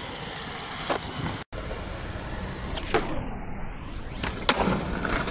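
Skateboard wheels rolling on smooth pavement, with sharp clacks of the board popping and landing, the loudest about three seconds in and two more near the end. A sweeping whoosh-like filter effect passes over the sound in the middle.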